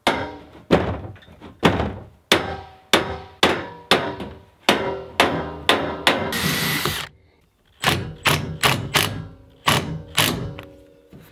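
Repeated sharp knocks on the steel cage of an IBC tote, each ringing briefly, about two a second. A short hiss breaks in about six seconds in, then the knocks resume quicker.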